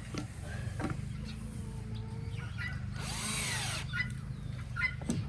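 Power drill driving a screw into wood in one short run about three seconds in, its pitch swinging up and down, over a steady low hum.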